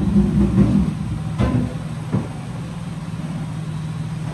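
Steady mechanical hum of a commercial kitchen's extraction hood fan, with a few sharp clanks of cookware in the first half.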